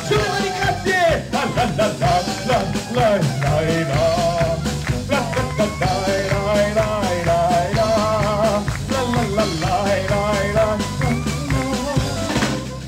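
Live band playing an upbeat tune: a drum kit keeps a steady beat under a wavering horn melody. The band drops down near the end.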